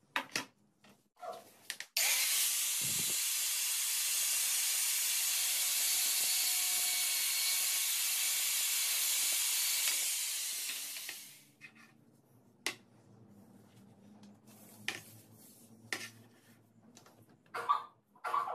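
A loud, steady hiss that starts abruptly about two seconds in and dies away about nine seconds later. Scattered light clicks and taps come before and after it, and a couple more near the end as wooden parts are fitted onto a PVC pipe.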